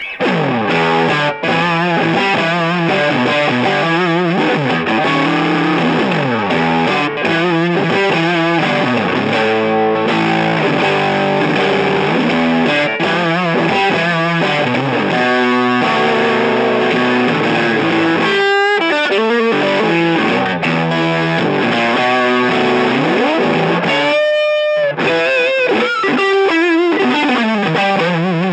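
Electric guitar played through an Echopark 1977 overdrive pedal into a tube amp, giving a driven, distorted tone. Lead phrases with many bent notes, and one long held note with vibrato about three-quarters of the way through.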